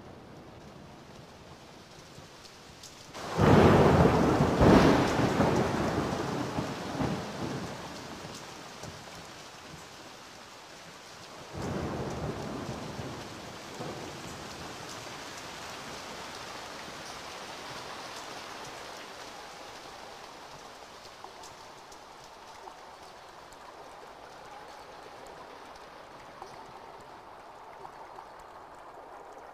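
Thunderstorm: a loud thunderclap about three seconds in that rumbles away over several seconds, a second, weaker peal of thunder near twelve seconds, and steady rain throughout.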